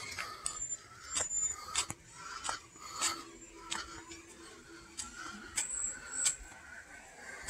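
Footsteps on an asphalt trail, scuffing and clicking at a walking pace of about one step every two-thirds of a second.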